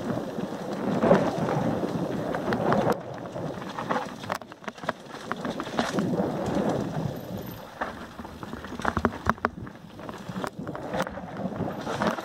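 Mountain bike descending a dirt forest trail, heard close up on a Shimano CM-1000 action camera: a rough, uneven rumble of tyres over dirt, roots and rocks, with frequent sharp rattles and knocks from the bike over bumps and wind buffeting the microphone.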